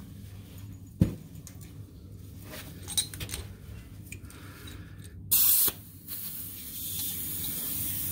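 Compressed air hissing from a pneumatic air chisel's air line: a knock and a click, then a short loud blast of air about five seconds in, followed by a steady hiss.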